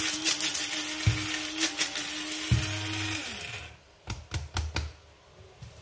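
Electric mixer grinder running steadily as it grinds masala, then switched off about three and a half seconds in, its motor winding down with a falling hum. A few short knocks follow.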